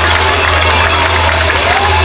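A massed children's electric guitar band holding a steady low chord while the crowd cheers, with shrill whoops rising and falling over it.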